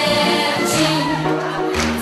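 Music: a passage of an Armenian pop song with no lyrics sung, carried by sustained instrumental melody lines.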